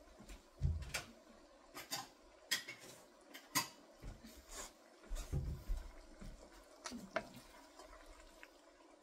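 Kitchen clatter: scattered light clicks and knocks of dishes and utensils being handled, with a couple of dull thumps.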